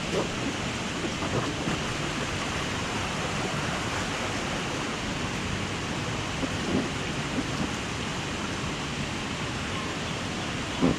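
Steady rush of water pouring down a water slide, with a few brief louder spikes.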